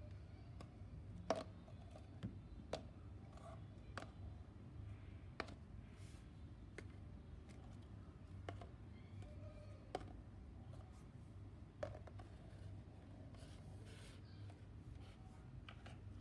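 Scattered sharp little clicks and taps, one every second or two, over a faint steady low hum.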